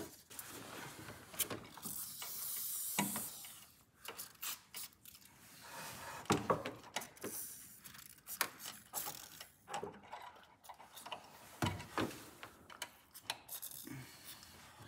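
Hard plastic engine-bay trim parts and fasteners being handled and pressed into place: scattered clicks and knocks with some rubbing and scraping.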